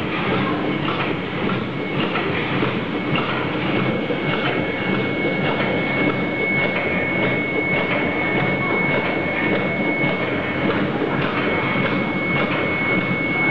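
LTRG-160 automatic soft tube filling and sealing machine running: a steady rhythmic clatter of the indexing turntable and the pneumatic filling and sealing stations, with a constant high whine.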